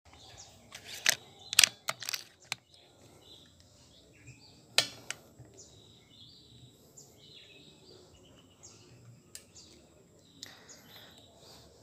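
Sharp clicks and knocks of handling on the scope-mounted camera and rifle as the aim is moved, a quick cluster of them about a second in and another strong one near the middle. Faint bird chirps and a steady thin high whine run underneath.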